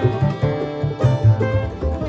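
Upbeat background music led by rapidly picked plucked strings, banjo-like, with a bass line.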